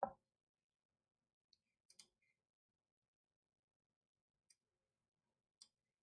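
Near silence broken by a few faint, sharp clicks of a computer mouse.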